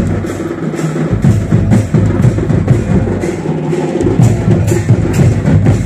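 Santal folk dance drumming: hand drums beating a quick, steady rhythm, loud and continuous.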